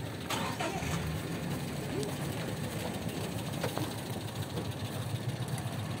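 A vehicle engine running at idle, a steady low hum, with a few faint short sounds over it.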